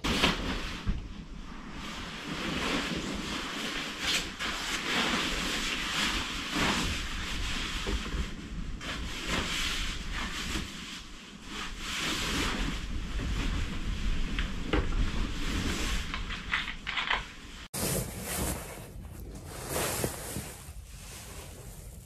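Strong gusting wind buffeting the microphone: a rushing noise with a deep rumble, swelling and easing in gusts. It cuts out for an instant about eighteen seconds in and then carries on.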